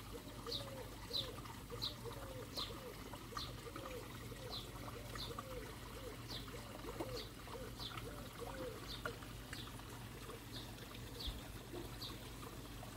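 Birds calling in the open air, one repeating a short high falling chirp every second or less, over trickling water and a low steady hum.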